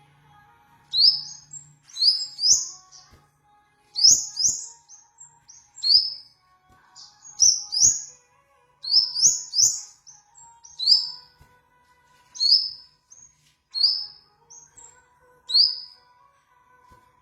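Bird-call recording used as a lure for sunbirds: short, sharp, upward-sweeping chirps, repeated every second or two and sometimes in quick pairs or triplets, with a faint steady tone underneath.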